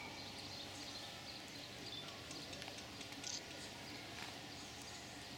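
Faint, even outdoor ambience with scattered small clicks and one short, sharp high sound about three seconds in.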